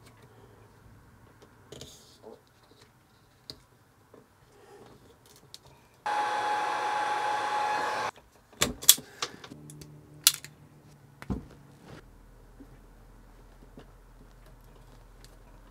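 Handheld electric heat gun running for about two seconds, a steady blowing with a whine, shrinking heat-shrink tubing over a wire splice. A few sharp clicks and knocks follow.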